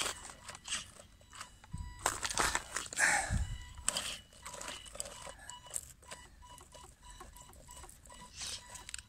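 WLtoys 12428 RC crawler driving down a stony slope: rocks and gravel clattering and crunching under its tyres, with a louder thump about three seconds in. Short on-and-off whines come through in the second half.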